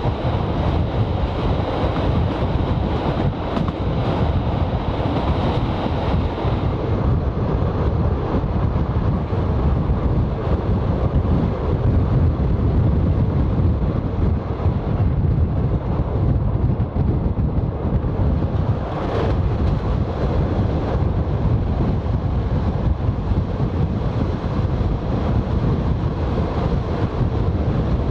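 Wind buffeting the microphone at the open window of a 1920s CPH 'Tin Hare' diesel railmotor running at speed, over the railcar's steady low running rumble.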